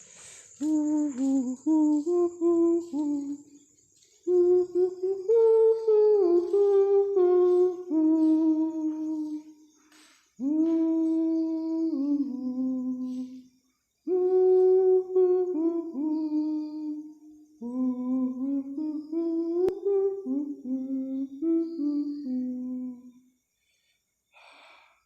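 A person humming a slow melody close to the microphone, in about five phrases separated by short breaks, the notes sliding up and down. The humming stops near the end.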